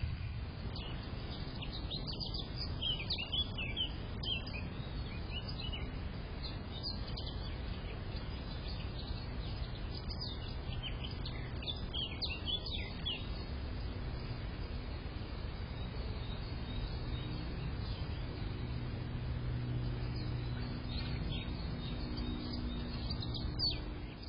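Small songbirds chirping in short quick bursts, in three spells, over a steady low background rumble.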